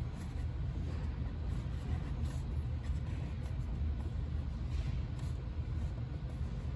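A steady low rumble with a cloth rubbing over the instrument cluster's clear cover in a few faint wiping strokes.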